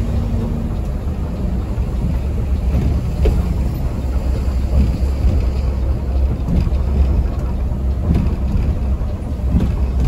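Mercedes-Benz OH 1626 coach running on the road, a steady low engine and road rumble heard from inside the cabin, with a few light knocks or rattles now and then.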